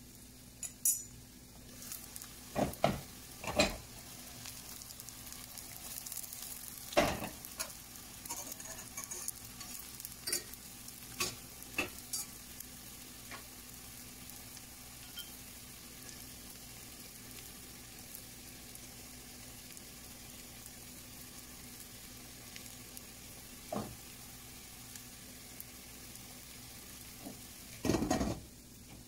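Boletus mushroom patties and chopped onion frying in stainless steel pans with a steady low sizzle. Scattered knocks and clinks of a glass pan lid and cookware being handled, the loudest cluster near the end as the lid goes back on.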